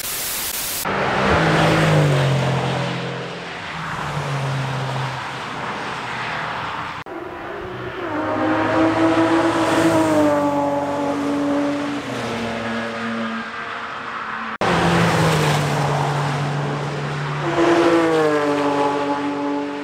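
A brief burst of TV-style static, then three cars passing one after another at racing speed on a track. Each engine note shifts in pitch as the car goes by, and there are abrupt cuts between them.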